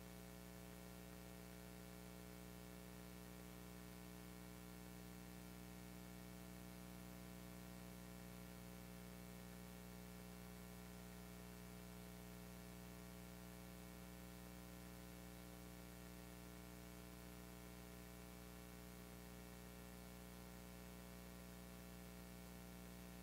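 Near silence: room tone with a steady faint electrical hum and hiss.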